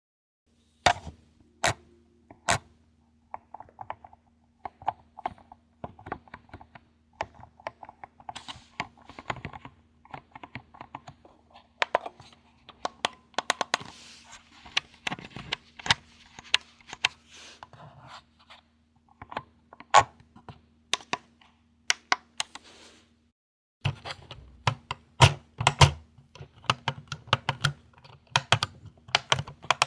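Buttons, switches and sticks on handheld drone remote controllers being clicked and worked, a quick irregular run of clicks over a faint steady hum. The hum stops briefly about 23 seconds in, and the clicking goes on with more low thud to it.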